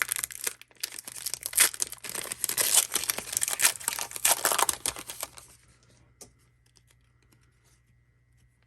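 Wrapper of a trading card pack being torn open and crinkled, a dense crackling with many sharp clicks that stops about five and a half seconds in, leaving only a few faint ticks.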